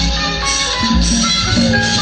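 Burmese traditional dance music accompanying a zawgyi dance: a melody in stepping notes over a steady drum beat, with rattling percussion.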